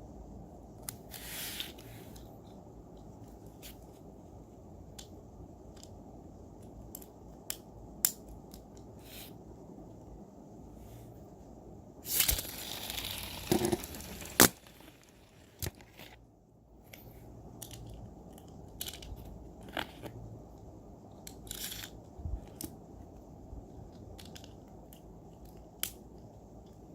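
Plastic toy packaging being handled: crinkling and tearing with scattered light clicks and taps. There is a louder burst of crinkling for about two seconds a little before the middle, ending in a sharp click.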